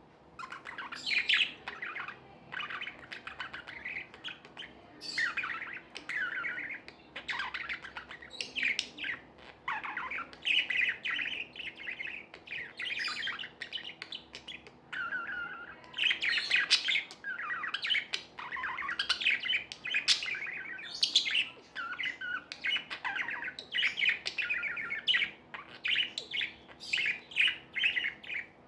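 Budgerigars chirping and warbling in a continuous, rapid chatter of short high chirps and squawks.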